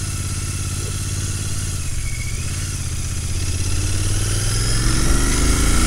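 Royal Enfield GT650's 648 cc parallel-twin engine running under way, rising in pitch and getting louder over the last couple of seconds as the motorcycle accelerates.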